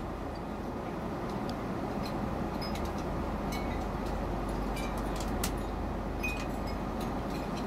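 Steady rushing cabin noise of a Boeing 777-200ER airliner in flight, with a few faint clicks and clinks of tableware scattered through it.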